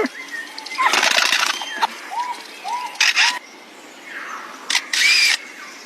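A bird calling: short arched whistled notes, three in quick succession about two seconds in, mixed with harsh rasping bursts.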